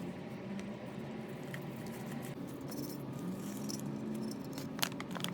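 Small metal parts and tools being handled, giving light clinks and rattles over a steady low background hum, with a few sharp clicks near the end.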